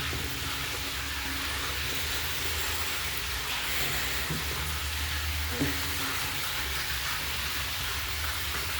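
Steady hiss with a low rumble underneath, and a single faint knock a little past halfway.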